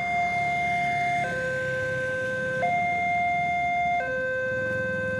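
Level-crossing warning alarm sounding its two-tone signal, stepping evenly between a higher and a lower note about every second and a half (high, low, high, low), as the boom barrier lowers. A motorbike engine rumbles underneath.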